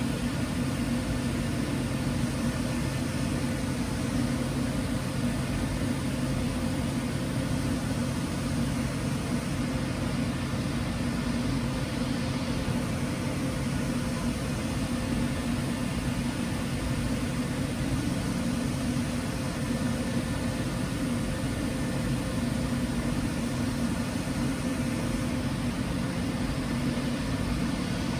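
Titanium spinning coin spinning steadily on its base, giving a constant whirring hum with a few held low tones.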